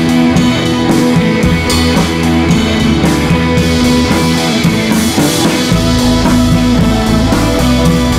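Background music with guitar and drums; the bass fills in heavier about six seconds in.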